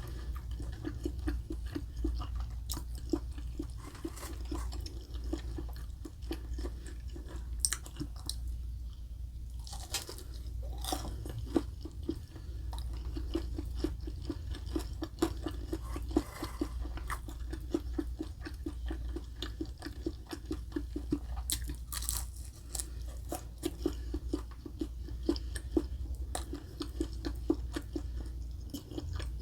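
Close-miked chewing of food in a steady rhythm, with crisp crunches such as the breaded crust of chicken katsu makes, over a low steady hum. The chewing pauses briefly about eight seconds in.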